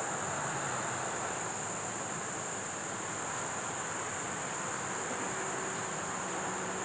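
Steady, unbroken high insect chorus of crickets or cicadas over a continuous even hiss. A low steady hum joins about five seconds in.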